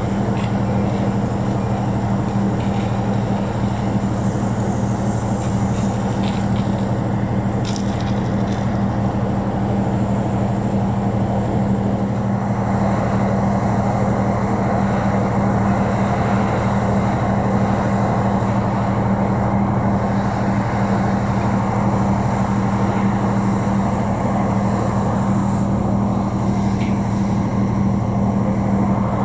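An engine running steadily at constant speed, with a low, even hum.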